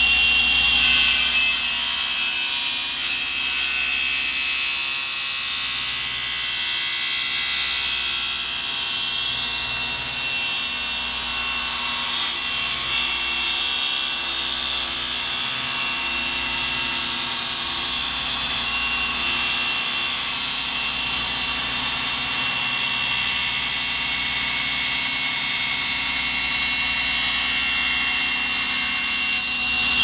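Electric power tool cutting wood. The motor runs steadily, and the noise of the cut starts about a second in and stops just before the end.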